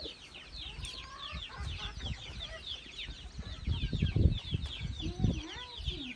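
Chickens clucking over a dense, continuous chorus of high chirps, with a few loud low thumps about four to five and a half seconds in.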